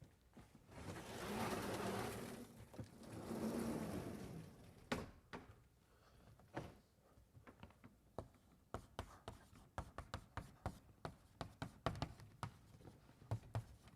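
Chalk tapping and clicking on a blackboard as formulas are written, a run of sharp, irregular taps about two or three a second. Before that, near the start, come two longer swells of noise.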